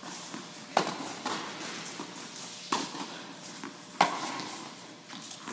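Tennis rally: a ball struck by rackets and bouncing on the court, a series of sharp knocks about a second or so apart. Each knock echoes in an indoor tennis hall.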